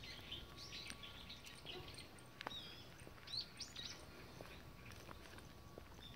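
Small birds chirping faintly, a quick run of short chirps and whistled notes that is busiest in the first few seconds and thins out toward the end, with a few faint clicks.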